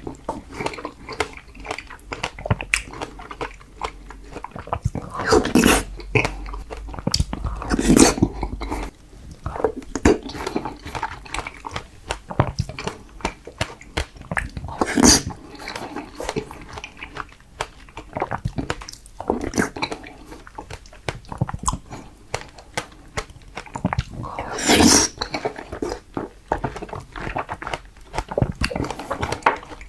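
Close-miked ASMR eating sounds of strawberries being bitten and chewed: a steady stream of short mouth clicks and smacks, with a few louder bites spread through.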